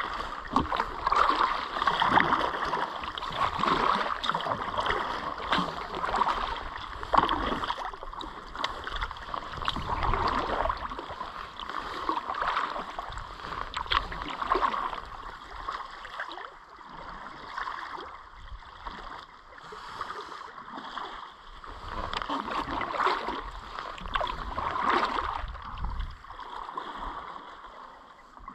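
Kayak paddle strokes: the blades dip and splash in calm river water in a slow, even rhythm, a stroke every second or two, with water dripping and trickling between strokes.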